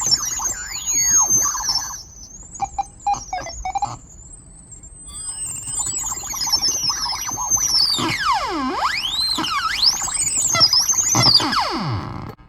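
Electronic sound-effect box built on an old toy sound chip, its high warbling tones swooping up and down in pitch as the optical sensor is played. About two seconds in it turns choppy and stuttering for a couple of seconds, then goes back to long sweeping glides, with deep dives in pitch near the end.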